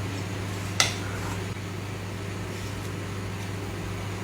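Steady electric hum of a kitchen appliance running, with a single sharp click about a second in.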